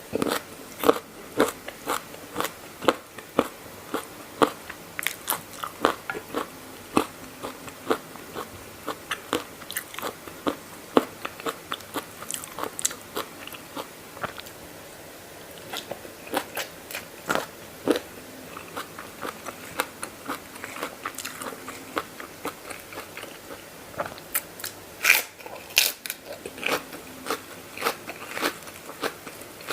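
A person chewing and crunching a spicy dry noodle salad (mee yum) close to the microphone: crisp crunches, several a second, with a brief lull about halfway and a few sharper, louder crunches near the end.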